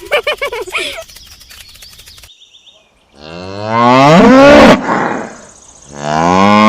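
Cow mooing twice: two long, low, loud moos a little over a second apart, preceded by a brief higher-pitched warbling sound in the first second.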